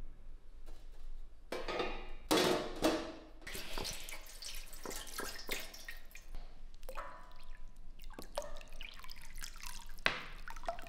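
Water pouring and splashing into a stainless steel pan around a rusty rifle barrel, with irregular drips and sloshes. The pan is being filled for boiling the rust off the barrel.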